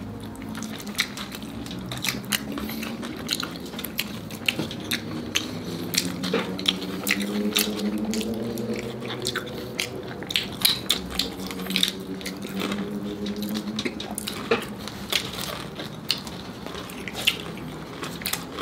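Close-up eating sounds: crunching bites and chewing of crispy lechon kawali (fried pork belly with crackling skin), with scattered sharp clicks of cutlery and plates.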